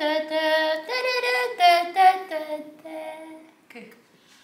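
A high voice singing a few long held notes that step up and down in pitch, stopping about three and a half seconds in.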